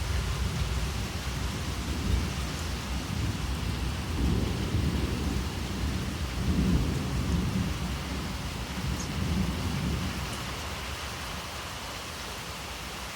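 Heavy rain falling steadily, with a long rolling rumble of thunder that swells about four seconds in and dies away near the end.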